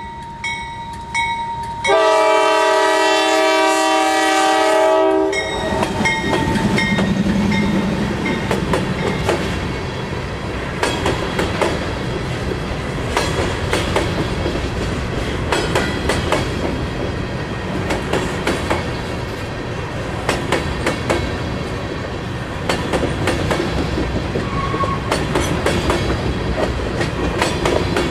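Norfolk Southern diesel freight locomotive sounding its multi-chime air horn in one long blast of about three seconds, with a bell ringing in even strokes just before it. The locomotive then passes and a long train of covered hopper cars rolls by, wheels clicking over the rail joints.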